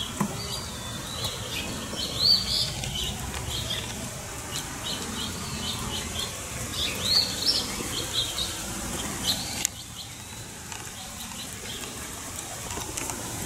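Songbirds chirping: short high notes, some rising, scattered through the first nine seconds or so over a low rumble that eases off near the end.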